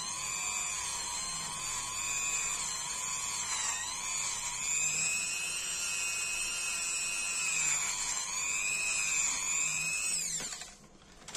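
Small electric rotary tool spinning a wire brush wheel at high speed, a steady high whine that wavers slightly in pitch as the brush is worked against a lighter's rubber gas-seal gasket to clean it. About ten seconds in the motor is switched off and its whine falls away.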